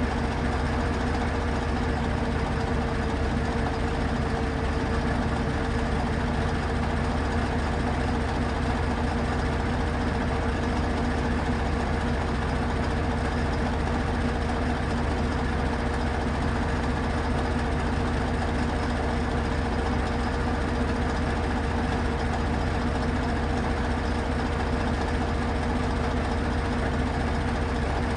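Truck crane's diesel engine idling steadily, a constant low drone with a fixed hum.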